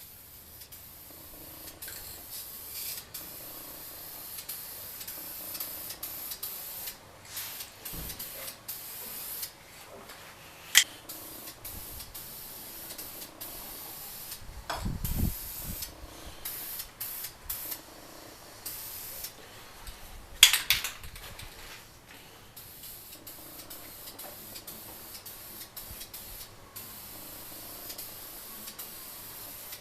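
Aerosol spray can of matte black wheel coating hissing in repeated bursts that start and stop, with a few sharp clicks in between.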